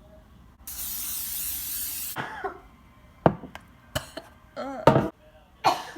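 An aerosol can of cooking spray hissing in one burst of about a second and a half, as when greasing a cake pan. It is followed by a few sharp knocks and short vocal noises.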